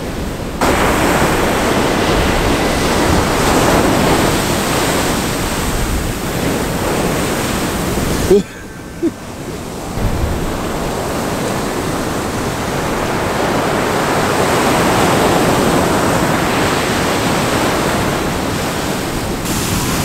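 Atlantic Ocean surf breaking and washing up the shore: a steady loud rushing that falls away for a second or so near the middle, then builds again.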